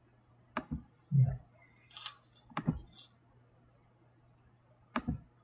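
Computer mouse clicking, in quick pairs of sharp clicks three times, with a louder dull thump about a second in. A low steady hum runs underneath.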